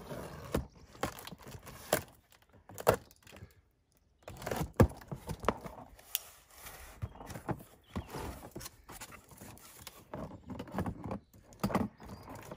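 Cardboard box being opened and unpacked by hand: irregular scraping and rustling of the cardboard flaps, with sharp knocks and clicks as plastic hose-reel parts are lifted out.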